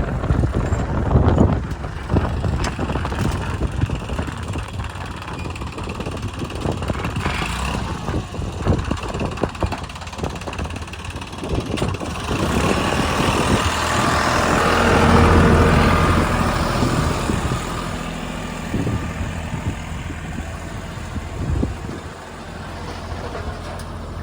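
Heavy diesel machinery engine running under load, revving up about halfway through and settling again, with scattered knocks and clatter.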